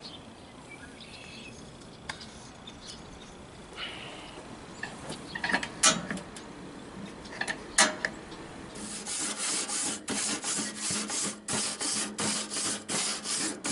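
Grill brush scraping back and forth over a gas grill's metal cooking grates, about two strokes a second, starting about nine seconds in. Before that, two sharp clicks while the grill's burner knobs are turned.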